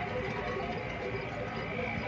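Many bells on a herd of camels clanking and jingling together, a steady overlapping jangle with no pauses.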